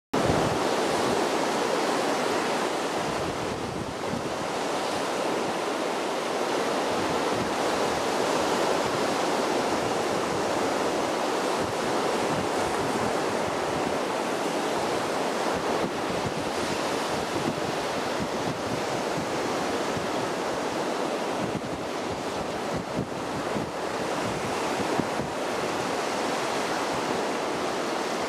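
Steady wash of small sea waves breaking on a sandy beach, with wind buffeting the microphone.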